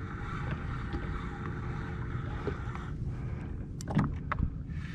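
A fishing reel being wound in steadily as a small hooked fish comes up, with water and wind noise around the jet ski's hull. The winding stops about three seconds in, followed by a few sharp clicks or knocks around four seconds in as the fish nears the surface.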